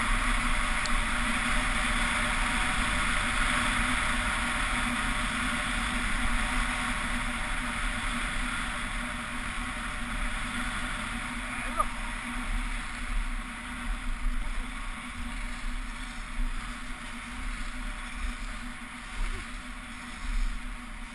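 Rushing wind on an action camera's microphone with the hiss of skis on groomed snow during a fast downhill ski run. The rush is steady at first, then eases and turns more uneven about halfway through.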